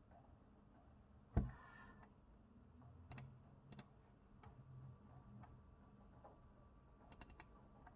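Faint, sharp computer-mouse button clicks, a few spread out and then a quick run of several near the end, with one louder knock about a second and a half in.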